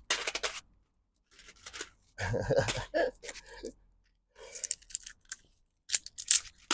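Loose coins clinking and jingling in groups, with sharp clicks as steel coins snap onto a strong fishing magnet.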